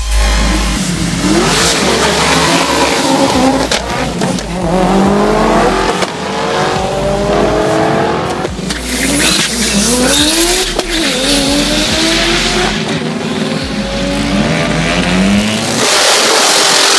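Drag-racing cars accelerating hard down the strip, their engines climbing in pitch through the gears again and again, each rise cut short by a shift. Near the end a louder, harsher noise takes over.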